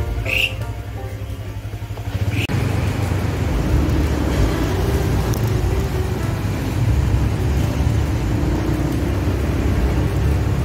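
Background music for about two seconds, then a motorcycle riding along: its engine running under steady wind and road noise.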